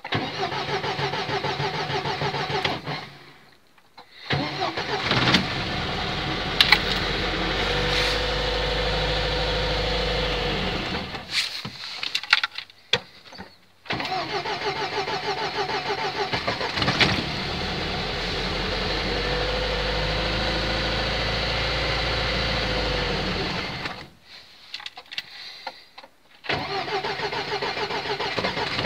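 A car engine being cold-started in severe frost: the starter cranks it in fast even beats, and the engine catches and runs unevenly for a few seconds before dying. This happens twice, and near the end cranking begins a third time.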